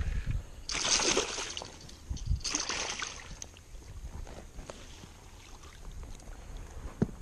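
Water splashing and sloshing at the surface in two bursts about a second and a half apart, then quieter lapping, with a sharp click near the end.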